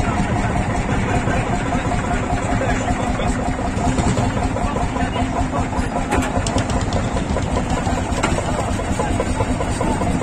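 Hot-bulb tractor engines idling steadily, with an even low rhythmic beat.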